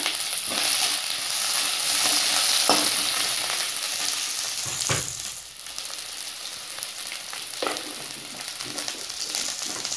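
Chopped onions sizzling in hot groundnut oil in a stainless steel kadai, stirred with a perforated steel ladle that clicks against the pan a few times. The sizzle gets quieter about halfway through.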